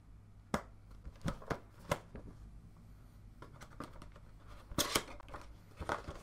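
Scissors snipping through the tape seal on a cardboard box, several short sharp snips in the first two seconds, then the cardboard box rattling and scraping as it is picked up and turned over, loudest about five seconds in.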